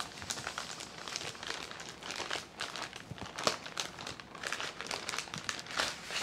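Thin plastic packaging and plastic film sheets crinkling and crackling irregularly as a bag of spare LCD protective films is opened and the sheets are handled.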